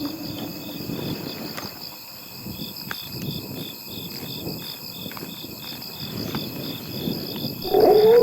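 Insects chirping: a steady high trill with a pulsing chirp repeating about three times a second.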